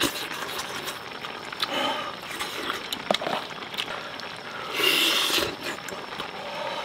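Close-up eating sounds: a man tearing and chewing a cooked chicken drumstick, with a few sharp clicks and a louder smacking stretch about five seconds in, over a steady background hiss.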